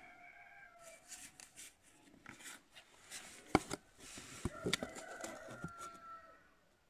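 A rooster crowing in the background, one long crow held for over a second from about four and a half seconds in. Scattered sharp taps and rustles from a cardboard template being handled against the tractor's metal fender, the loudest tap about three and a half seconds in.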